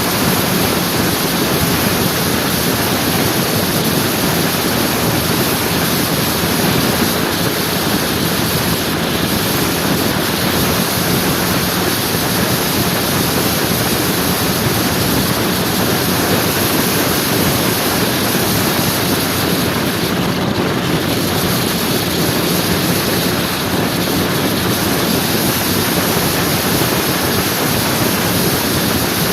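Steady rush of wind over the microphone with road noise and a faint, even engine hum from a scooter riding at a constant speed.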